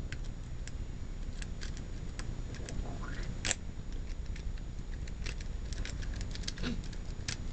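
Homemade pick working the pins of a Master Lock No. 1 padlock: scattered small metallic clicks and scrapes, with one louder click about three and a half seconds in.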